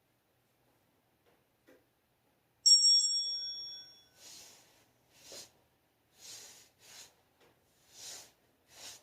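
A single strike of a small timer bell, ringing with several clear tones and fading over about a second and a half: the cue to change stretches. After it come about six short, soft hissy noises roughly a second apart.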